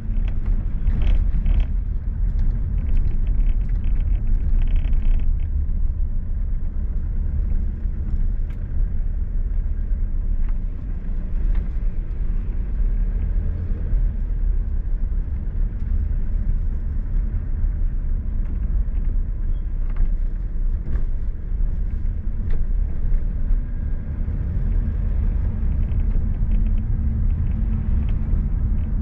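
Car driving along at speed: a steady low rumble of road, tyre and engine noise, with a few faint ticks in the first few seconds.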